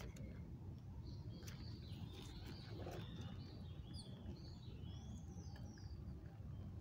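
Small birds chirping faintly, a run of short chirps and quick gliding calls starting about a second in and dying away after five seconds, over a low steady rumble of outdoor background noise.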